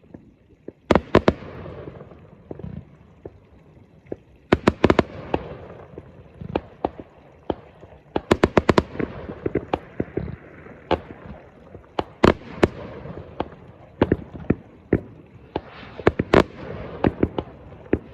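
Fireworks going off: repeated sharp bangs in quick clusters, about a second in, around four and a half seconds and around eight seconds, then scattered single bangs, over continuous crackling.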